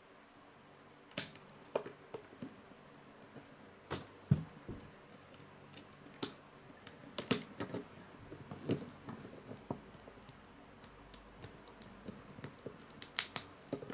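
Small plastic Lego bricks being handled and pressed together, giving scattered sharp clicks and snaps at irregular intervals, a few of them louder.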